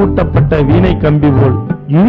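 A song: a voice singing a winding, gliding melody over steady drum strokes.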